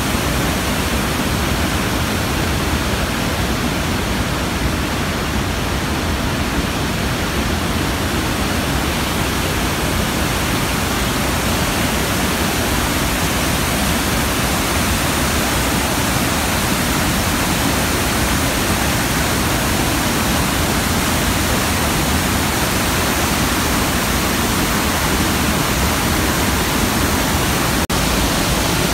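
Steady, loud rushing of the Iguaçu Falls, masses of water pouring down close by, with a brief click near the end.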